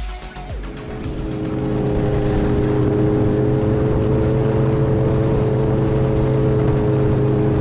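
Electronic music stops about half a second in and gives way to a motor running steadily. Its hum grows louder at first, then holds at one unchanging pitch.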